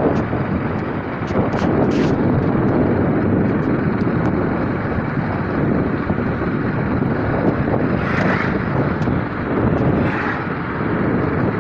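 Motorbike running at riding speed, with steady wind rush buffeting the microphone.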